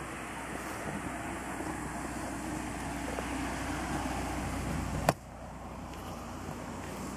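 A car engine running on a nearby road, growing slightly louder over a few seconds; a sharp click about five seconds in cuts it off, leaving a steadier outdoor hiss.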